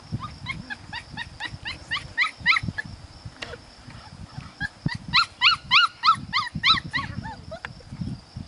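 Puppies yipping in rapid runs of short, high squeals, about four a second, in two bouts, the second bout louder.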